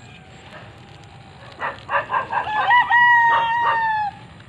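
A rooster crowing once: a few short notes from about one and a half seconds in, running into a long held final note that cuts off sharply near the end.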